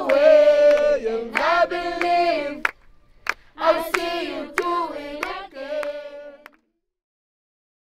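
Voices singing the lines of a slow worship song, held long notes, with sharp hand claps between them; the singing stops about six and a half seconds in.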